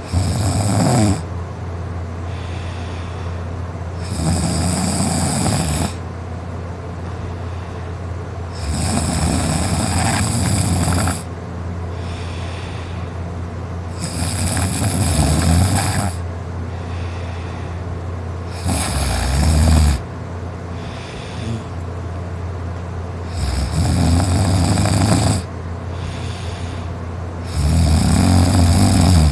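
A man snoring loudly in his sleep: seven long snores at an even pace, one about every four to five seconds, with fainter breaths between them, over a steady low hum.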